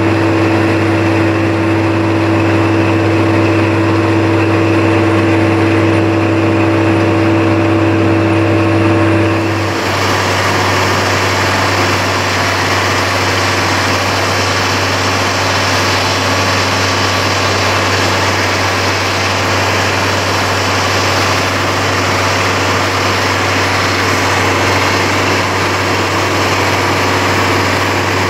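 Vögele Super 1502 wheeled asphalt paver running steadily while laying asphalt, its diesel engine droning. A steady whine over the engine stops abruptly about ten seconds in.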